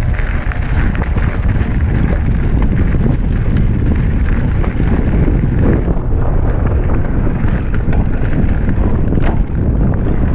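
Wind buffeting the microphone of a camera mounted on a downhill mountain bike, over the rumble of the tyres on gravel and dirt. Scattered sharp clicks and rattles from the bike run through it.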